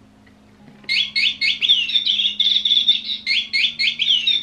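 Electronic birdsong from a cat's toy bird. About a second in it starts playing a run of short chirps followed by a fast warbling trill, then starts the same sequence over about halfway through.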